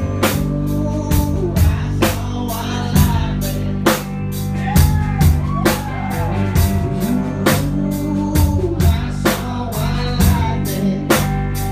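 A country-rock band playing live in an instrumental break between sung lines: a drum kit keeps a steady, hard-hit beat under distorted electric guitar and lap steel, with a heavy bass end.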